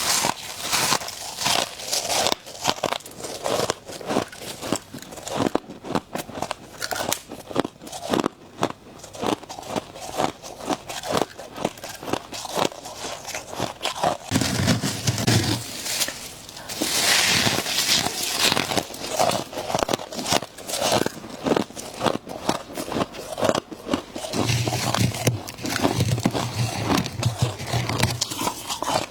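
Close-miked crunching of ice being bitten and chewed: many sharp, crackly crunches in quick succession.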